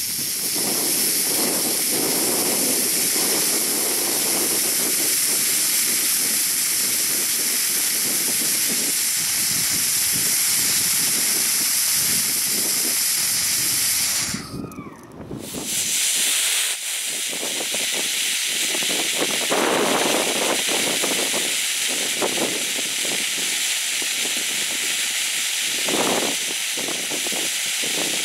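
Homemade sugar rocket motor burning on a thrust-test stand: a steady, loud hiss that makes a long but weak burn. It drops away briefly about halfway through and comes back, with wind rumbling on the microphone at times.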